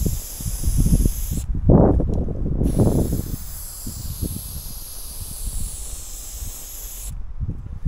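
Aerosol spray paint can hissing in long strokes while a graffiti outline is painted, the hiss wavering as the can moves. It stops for about a second, a second and a half in, then starts again and stops once more near the end, over a low rumble throughout.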